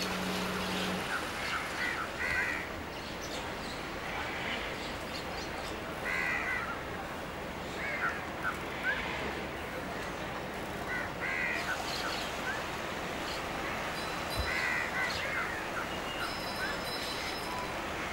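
Crows cawing, in short bunches of calls every couple of seconds, over a steady background hiss.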